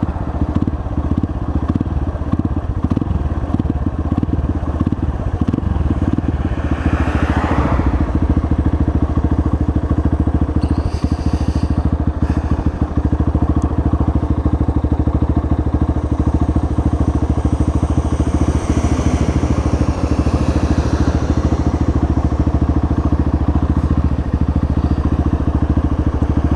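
Apollo 250cc dirt bike's single-cylinder four-stroke engine idling steadily with the bike at a standstill.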